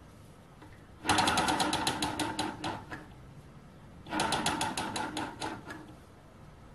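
Small home-built gamma Stirling engine spun by hand twice, its mechanism clicking rapidly each time and slowing as it coasts down over a second or two: it nearly runs but does not keep going.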